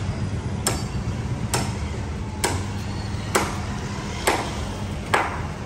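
Steady hammering on metal, one blow about every second, six blows in all, each with a short ring. A low steady hum runs underneath.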